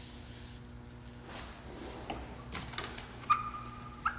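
A paper towel wiping a car windshield after a spray of glass cleaner: a few faint scratchy rubs, then a squeak of the towel on the glass lasting just under a second near the end.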